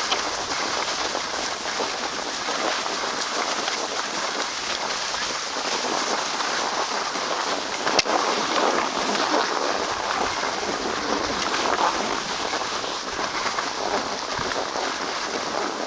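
Skis sliding downhill on packed snow, a steady hiss, with a single sharp click about halfway through.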